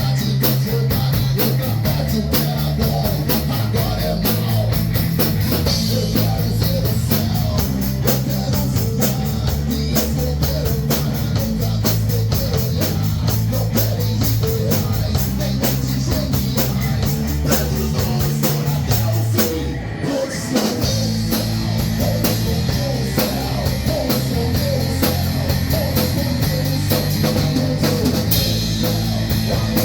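Hard rock band playing live: guitars, bass and a driving drum kit, with a brief break about two-thirds of the way through before the full band comes back in.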